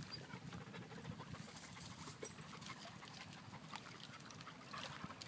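A dog panting, faint and quick.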